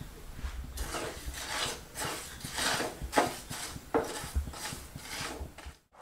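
Wooden spatula stirring granulated sugar, jaggery pieces and a little water in a non-stick pan, giving repeated gritty scraping strokes as the sugar and jaggery begin to dissolve into syrup.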